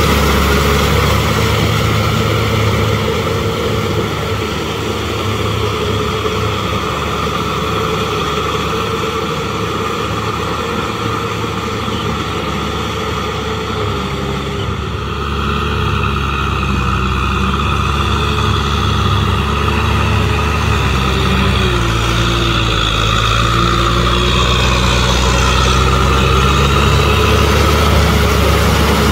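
Kubota M6040SU tractor's diesel engine running steadily under load as it drives a rear rotary tiller through wet paddy mud. About three-quarters of the way through, the engine note dips lower and then settles.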